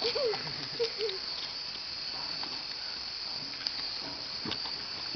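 A few short voice sounds in the first second, then scattered faint knocks as people climb on a wooden playground structure, over a steady high hiss.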